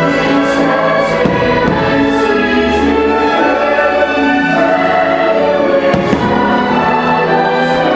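Choir and orchestra music from a fireworks show soundtrack, with fireworks bursting several times over it.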